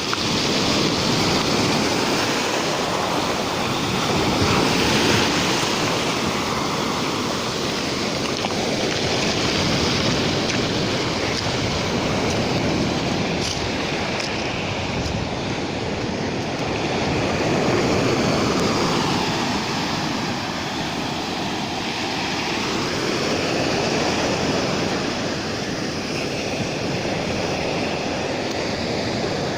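Waves of a rough sea breaking and washing on the shore in a continuous rush, swelling and easing every few seconds.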